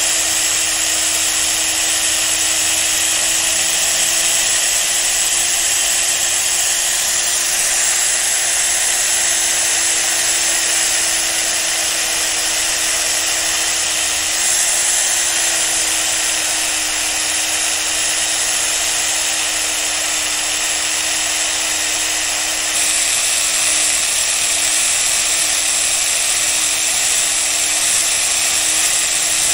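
An electric power tool running steadily while abrading the steel blade of a pair of tailor's shears, resurfacing it to take out pitting, with a steady grinding hiss over one motor tone. The motor's pitch steps up slightly about halfway through, and the hiss changes near the end.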